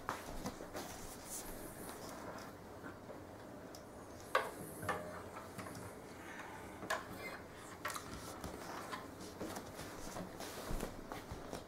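Faint, scattered clicks and light knocks in a small room, the sharpest about four seconds in.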